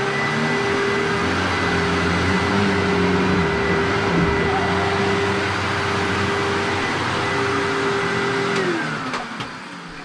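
Vacuum cleaner motor running at full speed with a steady whine. About nine seconds in it is switched off, and the whine falls in pitch as the motor spins down.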